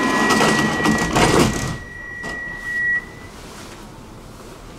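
Stockholm metro train doors closing: a steady high warning tone sounds over loud station noise. About three seconds in the doors bump shut, the tone stops, and the sound drops to the quieter hum inside the car.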